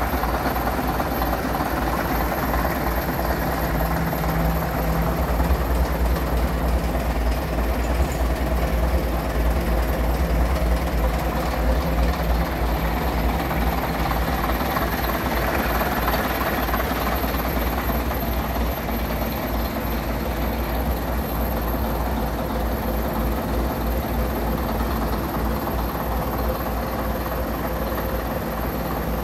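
Leyland diesel engine of an RTL double-decker bus idling steadily at low revs, with a deep, even throb.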